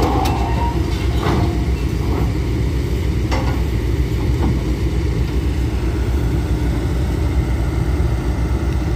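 Heavy diesel engine idling steadily, with a series of sharp, ringing metal clanks in the first few seconds, the steel loading ramps of a lowboy trailer being handled.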